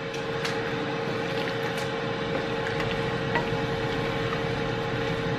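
A kitchen appliance's fan running steadily, a constant hum with one held tone over a whooshing hiss, with a few light clicks.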